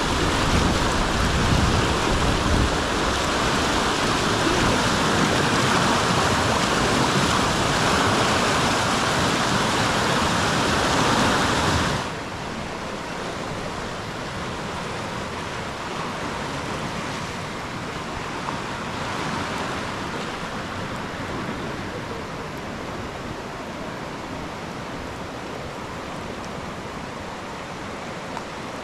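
Fast floodwater rushing and churning past a footbridge, a loud steady rush. About twelve seconds in it cuts suddenly to a quieter, duller steady rush of floodwater spreading across a road.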